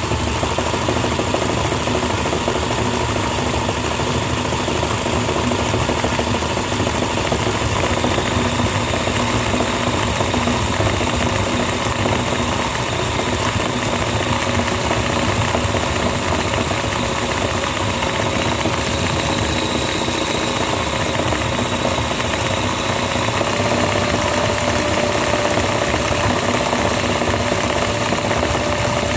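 A toy turtle's small electric gear motor and plastic gearbox whirring steadily while powered from a bench supply at about 17 V, well above its battery voltage. The whine steps up in pitch twice, about halfway through and again near the end, as the voltage is turned up.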